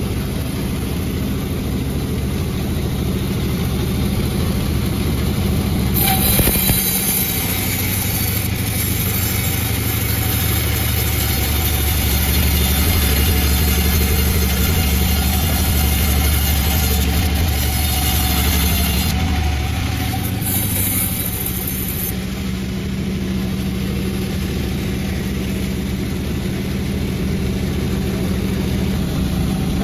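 Panda36 chainsaw engine running steadily. From about six seconds in to about twenty-two seconds in, a deeper hum and a high hiss join it, which fits the saw biting into the jackfruit log.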